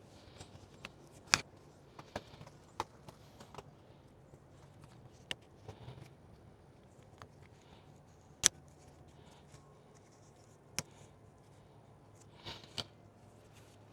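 Scattered sharp clicks and light knocks from small hard parts being handled while fitting an LED headlight bulb, with two louder clicks about a second and a half in and past the middle.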